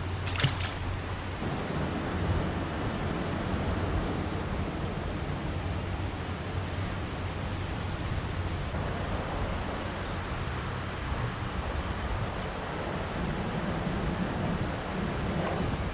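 Steady wind noise on the microphone, a rushing haze with a fluctuating low rumble, with one short sharp sound about half a second in.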